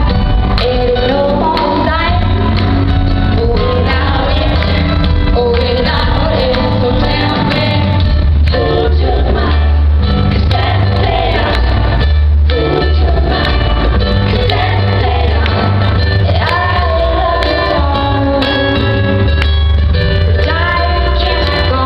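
A live pop song: a woman sings lead into a microphone over a band with heavy bass, heard from the audience in a large arena hall.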